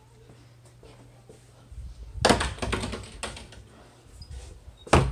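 A cluster of sharp knocks and clatter about two seconds in, and one more sharp knock near the end, over a faint low hum that stops early on.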